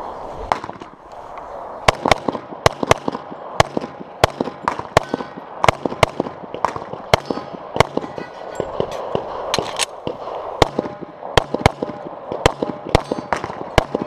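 Semi-automatic pistol firing a stage of about two dozen shots, mostly in quick pairs a fraction of a second apart, with short pauses between the strings.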